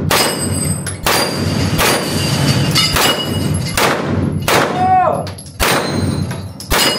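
CZ Scorpion 9 mm firing single shots in quick succession at steel gongs, about eight shots roughly a second apart. The hits leave the gongs ringing in several steady tones, different-sized gongs giving different notes.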